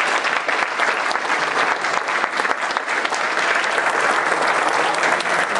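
Lecture-hall audience applauding: a steady, dense patter of many people clapping their hands.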